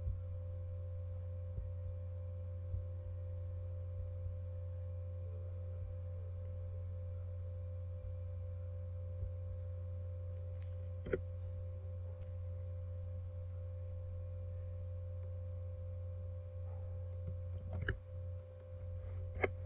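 Steady low electrical hum with a fainter higher tone, typical of a recording-setup microphone. A few short computer mouse clicks stand out, one about halfway through and several near the end.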